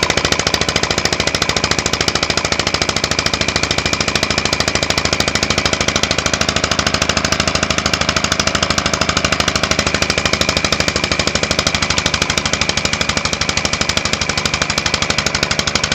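Homemade compressed-air engine running steadily at speed, its exhaust puffing through a homemade muffler in rapid, even pulses.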